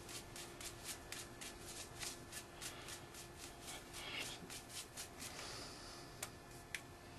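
A brush spreading liquid tape coating over a taped hockey stick handle: faint, quick, scratchy strokes about three a second, stopping about five seconds in, followed by two faint clicks near the end.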